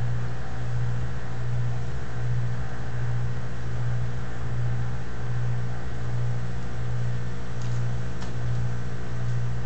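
A steady low mechanical hum that swells and eases a little more than once a second.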